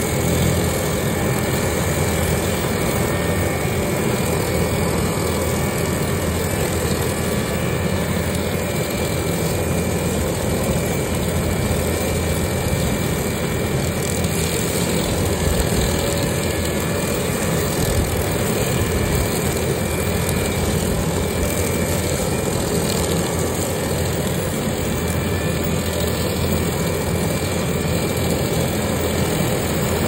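Case compact track loader's diesel engine running steadily while its hydraulic Kubota SC4072 brush cutter spins and mows tall grass, a constant engine drone with a steady high whine over it.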